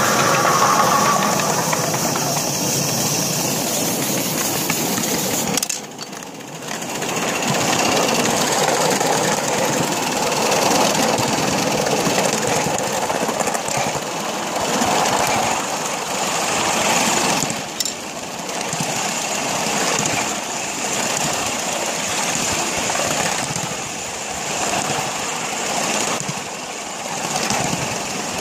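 Steam locomotive running, a dense, steady noise of working steam and machinery that drops away briefly about six seconds in and again a little past halfway.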